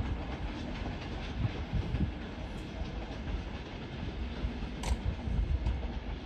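Double-deck passenger train rolling away along the tracks: a steady low rumble of wheels on rail, with one sharp click about five seconds in.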